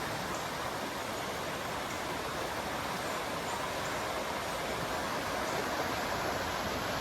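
Creek floodwater rushing during a flash-flood surge: a steady rushing noise that grows slightly louder toward the end.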